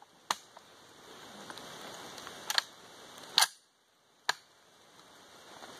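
Several sharp metallic clicks from an M1A rifle's action being worked by hand, operating rod and bolt clacking. The plastic training rounds are too weak to cycle the semi-automatic action themselves.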